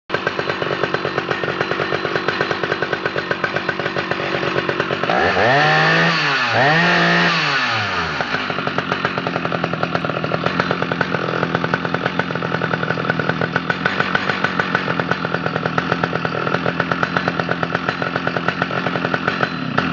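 Stihl 056 Super, a 5 cubic inch two-stroke chainsaw, idling with a rapid steady firing pulse. It is revved twice about five and six and a half seconds in, its pitch rising and falling each time, then settles back to idle.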